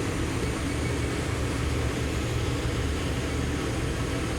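Sub spindle of a Citizen L20 Swiss-type CNC lathe spinning at high speed, around 6,000 RPM: a steady mechanical hum.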